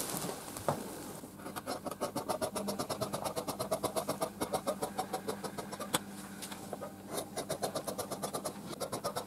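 Large steel tailor's shears cutting biflex stretch fabric on a table: a quick, even run of snips, about four a second, starting about a second in.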